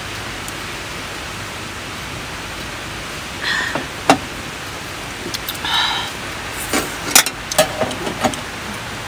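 Drinking beer from a can: a sip and swallow with a sharp click about three and a half to four seconds in, a breathy exhale around six seconds, then a few small clicks and knocks. A steady hiss runs underneath.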